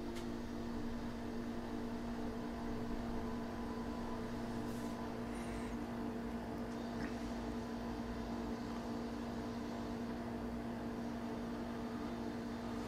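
A steady hum made of several constant tones over a low rumble, from something electrical or mechanical running in the workshop, with a faint tick or two about midway.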